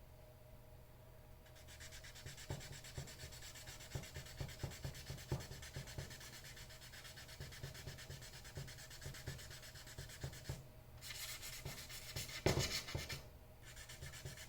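600-grit sandpaper rubbing over a gel coat repair on a fibreglass dinghy rudder: a steady scratchy hiss of back-and-forth sanding strokes with light knocks, starting about a second and a half in and growing louder for a couple of seconds near the end.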